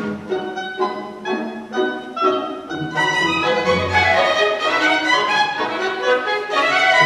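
Live orchestra playing. The music grows fuller and louder about three seconds in.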